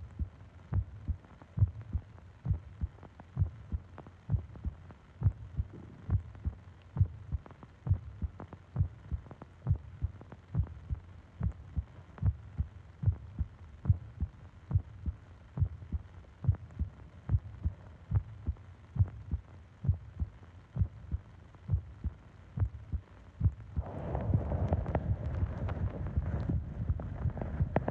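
A human heartbeat heard up close, steady low thumps a little more than one a second. About four seconds before the end a louder, even rushing noise rises over it.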